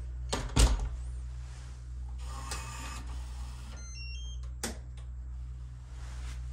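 A wall light-switch panel pressed in a quiet corridor: a few short electronic tones, then a sharp switch click about four and a half seconds in, over a steady low hum. A louder thump about half a second in is the loudest sound.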